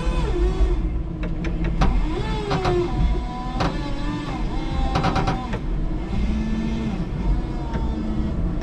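Electric forklift's hydraulic pump motor whining in shifting tones as the mast and forks are worked, over a steady low hum, with several sharp clicks and knocks from the mast and carriage.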